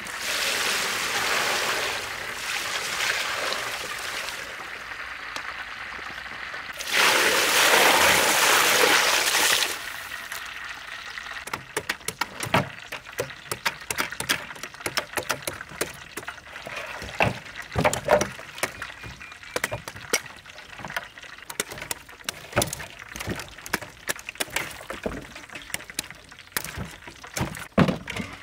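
Water poured from a metal basin over a heap of young green coconuts in two runs, the second louder. Then comes a long run of sharp, irregular chops as knives cut into the coconut husks.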